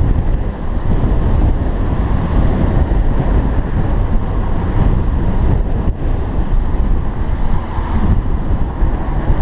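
Wind buffeting a vehicle-mounted GoPro's microphone while driving: a dense, steady rumbling rush, heaviest in the low end.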